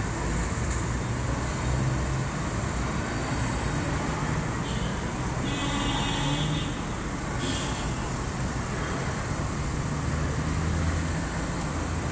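Steady city street traffic: a continuous wash of engine rumble and road noise. A faint high tone rises above it for about a second roughly halfway through, and a short sharp sound follows soon after.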